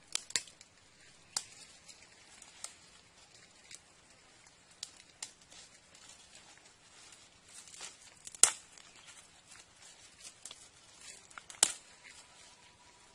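Leafy stems and twigs being pulled, bent and broken off a sapling by hand: rustling leaves with scattered sharp snaps, the loudest about eight and a half seconds in and again near the end.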